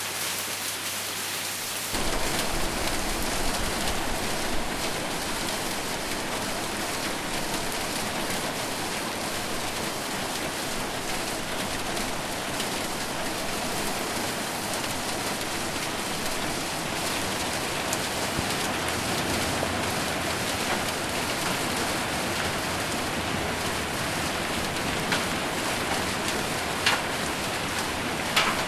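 Heavy rain falling on a metal roof as a steady dense patter, growing louder and fuller about two seconds in, with a few sharper ticks near the end.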